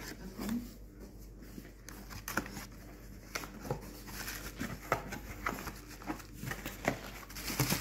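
Cardboard box flaps being opened and hands rustling the bubble wrap packed inside, a run of irregular crinkles, rustles and soft taps.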